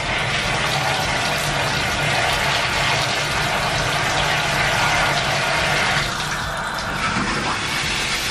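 Water running hard from a bathtub tap into the tub, a steady rush, with a brief change in its sound about six seconds in.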